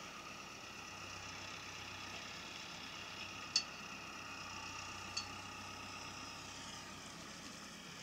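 Massey Ferguson 4345 tractor engine running steadily with a whine as it pulls a loaded bale trailer across stubble. Two brief sharp knocks come about three and a half and five seconds in.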